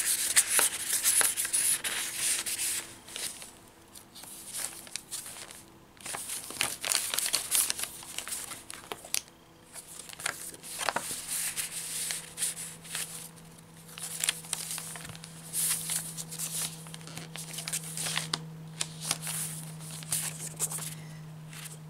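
Paper pages and card tags of a handmade junk journal being turned and handled: irregular bursts of crisp paper rustling and crinkling. A faint steady hum comes in about halfway through.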